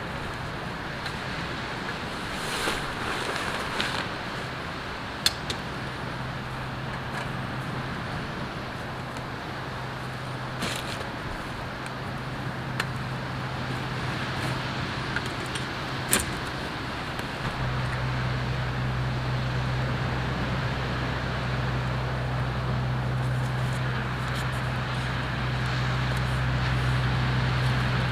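Steady outdoor noise with a few sharp clicks and knocks as camp gear is handled and the wood fire pops. A low steady engine hum comes in about six seconds in and gets louder after about seventeen seconds.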